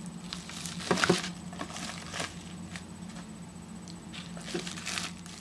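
Plastic packaging rustling and crinkling as it is handled and unwrapped, a string of short crackles and taps, busiest about a second in and again near the end, over a steady low hum.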